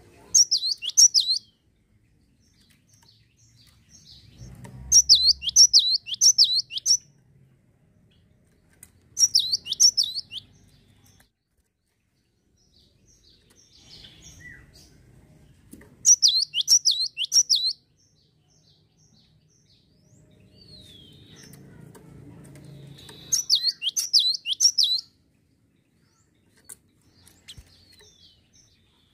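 Cinereous tit (gelatik batu) singing: five short bursts of high, sharply falling notes repeated quickly, each burst a second or two long and several seconds apart.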